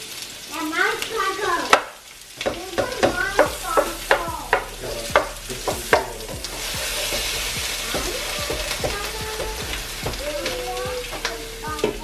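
Chopped onions and frozen bell peppers sizzling in olive oil in a skillet, stirred with a wooden slotted spatula that clicks and scrapes against the pan. The stirring is busiest in the first half, and the sizzle is plainest afterwards.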